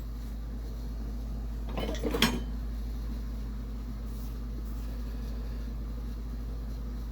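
Old metal hand tools clinking against each other as they are handled, a short cluster of clinks about two seconds in, over a steady low hum.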